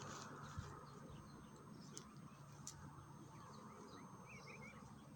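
Near silence: faint outdoor ambience with distant birds chirping, a soft thump about half a second in and two light ticks a little later.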